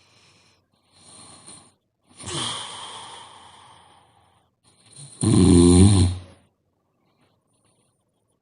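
A woman snoring in her sleep: a breathy sound about two seconds in that fades out, then one loud snore lasting about a second, about five seconds in.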